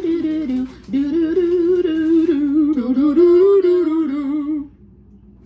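A woman humming a wordless tune, the melody wavering up and down and breaking off about four and a half seconds in.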